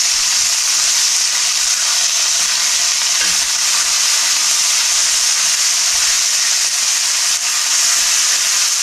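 Ribeye steaks searing in hot olive oil in a cast iron skillet: a loud, steady sizzle.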